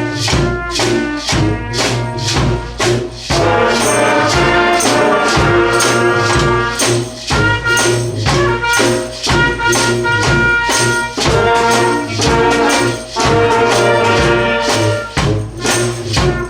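A horn band of saxophones and brass instruments playing a rock anthem together, loud, with drums and tambourine keeping a steady beat.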